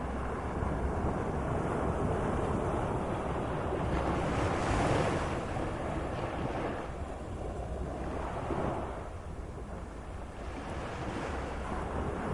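Moderate sea surf: a steady wash of waves, with a wave breaking and hissing about four seconds in and a smaller one around eight and a half seconds.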